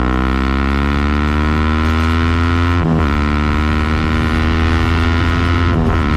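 Sport motorcycle engine pulling under acceleration, its pitch climbing steadily and then dropping sharply at an upshift about three seconds in, climbing again and shifting up once more near the end.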